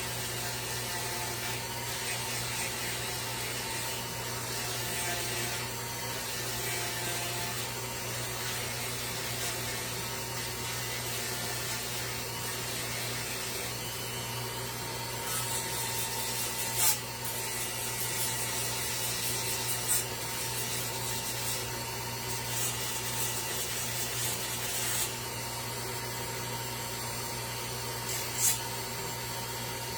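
A steady motor hum runs throughout. From about halfway to near the end, wood is shaped by hand with a scraping, sanding sound. A few sharp knocks come at intervals in the second half.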